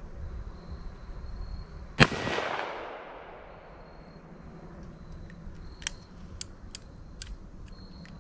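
A single shot from a Ruger Blackhawk single-action revolver firing a .45 Colt lead-bullet handload, about two seconds in, with a rolling echo that dies away within a second. It is followed from about the middle on by a few light metallic clicks of the revolver's action being worked.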